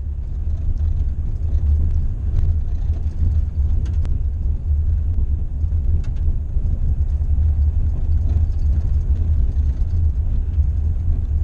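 Steady low rumble inside a van's cabin as it drives slowly along a dirt road: the engine running and the tyres rolling on packed dirt, with a few faint ticks.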